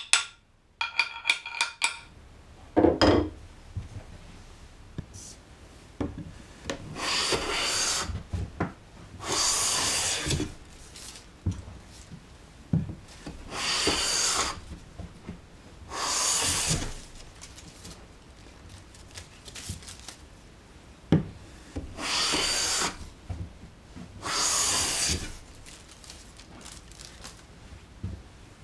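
Japanese hand plane (kanna) cutting long shavings from a wooden board in about seven strokes, each about a second long, with pauses between. Near the start, a few hammer taps on the plane's blade ring briefly as its depth is set.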